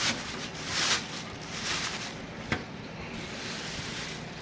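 Rustling and handling noises from unpacking plastic filter parts and packaging, in several short bursts, with a sharp click about two and a half seconds in.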